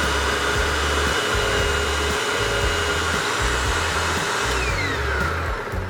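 Hoover WindTunnel Self-Propelled upright vacuum running at full speed on a test run after a belt change. It is switched off about four and a half seconds in, and its motor whine falls as it spins down. The belt is not slipping.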